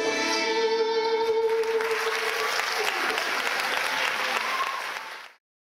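Dance music ends on a long held note, and about a second and a half in an audience breaks into applause. The applause fades and cuts off abruptly near the end.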